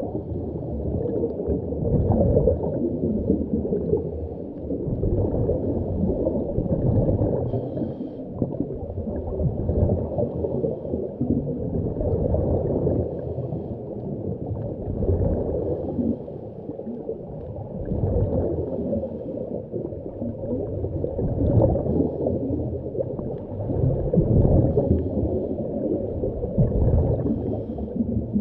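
Muffled underwater noise of bubbles gurgling, swelling and fading about every three to four seconds, as a diver's exhaled breath would.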